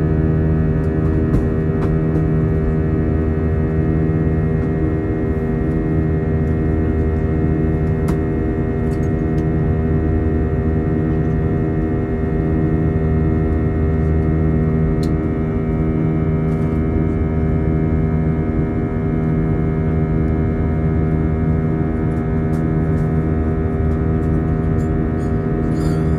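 Airbus A320 cabin noise in flight: a steady jet-engine drone and airflow rumble with several steady engine tones held over it, and a few light clicks.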